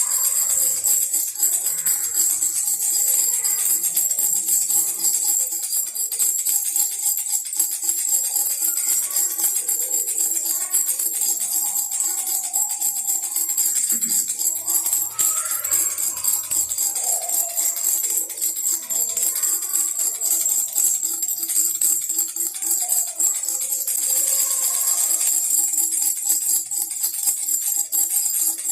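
Baby rattle shaken continuously with a bright, jingling sound like a tambourine, over background music with a wandering melody.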